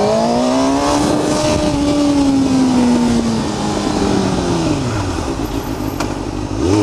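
Sport motorcycle engine pulling up through the revs, holding, then winding down steadily as the bike slows, picking up again near the end. Wind rushes over the helmet microphone throughout.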